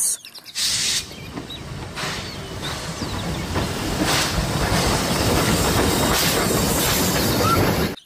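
Steam locomotive running: a steady rumble with hissing steam, growing louder, and stronger surges of steam hiss every couple of seconds.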